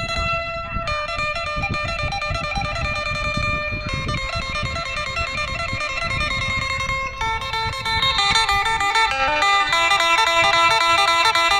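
Background music led by plucked guitar, a melody of picked notes that gets busier and a little louder about seven seconds in.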